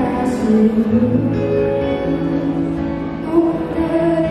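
Children's choir singing to a conductor, with instrumental accompaniment and a low bass line underneath.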